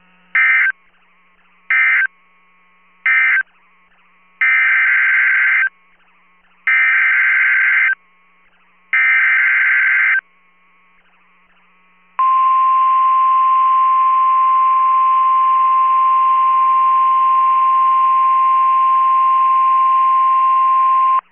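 NOAA Weather Radio alert signalling: three short screeching SAME data bursts (the end-of-message code), then three longer SAME header bursts coding the next warning, then the loud steady 1050 Hz warning alarm tone held for about nine seconds.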